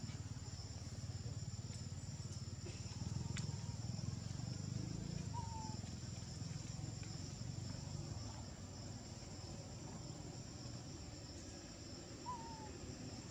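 Steady high-pitched shrilling of insects in the forest, two even tones held without a break over a low rumble. A short falling chirp sounds twice, about five seconds in and again near the end.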